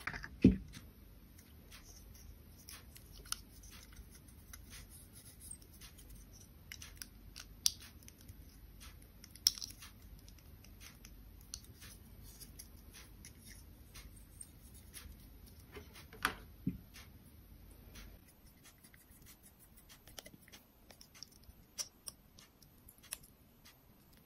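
Handling noise from a clip-on phone lens and its plastic packaging: scattered small clicks, taps and light rustling, with a sharp knock about half a second in and a few more spread through. A faint low rumble underneath stops about three quarters of the way through.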